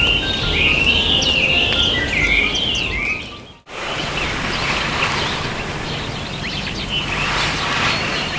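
Background music fades out about three and a half seconds in. Outdoor ambient noise with birds chirping follows.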